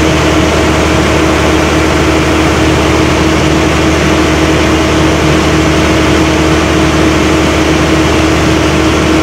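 Running refrigeration plant machinery giving a loud, steady drone with a constant hum.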